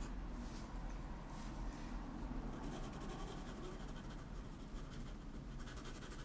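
Drawing pencil scratching softly on paper as strokes are laid down, a faint, steady scratch.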